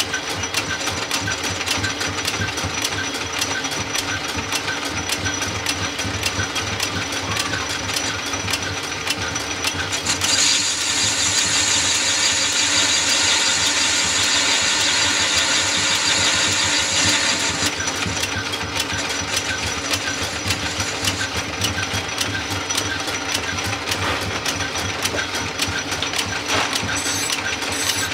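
A small metal lathe running, its drive giving a fast, even ticking. From about ten seconds in to about eighteen, a tool cutting the spinning metal part adds a louder, high scraping hiss.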